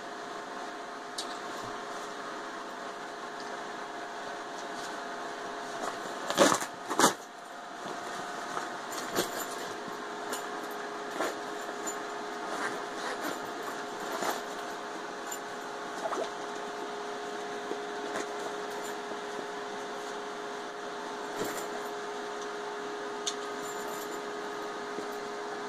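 Handling of a tactical backpack: nylon straps and plastic buckles rustling and clicking, with two loud clicks about six and a half seconds in and scattered small clicks after. A steady hum runs underneath.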